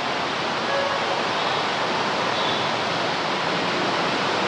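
Fire hose water spraying onto burnt, smouldering debris: a steady, even rushing hiss.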